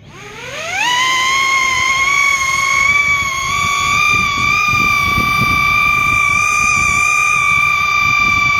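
Brushless motors and propellers of a 5-inch FPV quadcopter on 6S spinning up over about a second to a steady high whine as it lifts off and hovers. The motors are heavily loaded by a 12,000 mAh battery.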